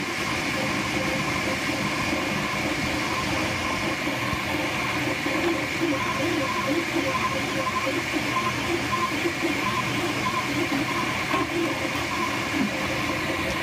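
Flashforge Dreamer 3D printer running mid-print: its stepper motors drive the print head with a shifting, pulsing whine over a steady hiss.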